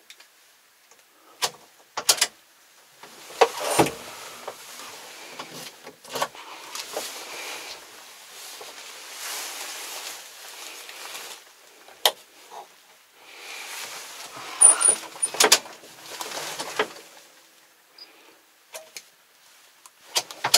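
Clicks, knocks and rustling inside a Kubota MZ775 tractor cab as hands move around the controls and clothing shifts, with the engine silent. The cab door is opened near the end.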